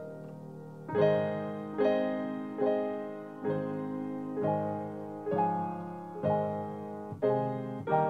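Solo piano playing slow, gentle chords, struck about once a second and each fading away before the next.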